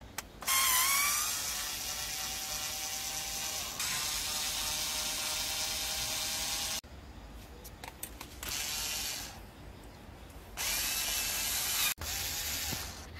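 Bosch cordless screwdriver turning bolts on a motorcycle radiator cover bracket in several runs. A long run whines up in pitch as it starts, a quieter stretch of clicking follows, and two shorter runs come near the end.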